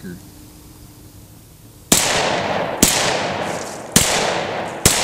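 Glock 31C pistol with a compensated (ported) barrel firing .357 SIG rounds, 90-grain Hornady XTP bullets over a maximum load of Blue Dot powder. Four shots about a second apart start about two seconds in, each followed by a long fading tail.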